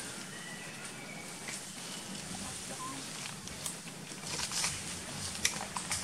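Dry leaf litter rustling and crackling as long-tailed macaques move around and feed from a plastic tray, with the crackles thicker and louder in the last two seconds. A few faint high chirps sound in the first second or so.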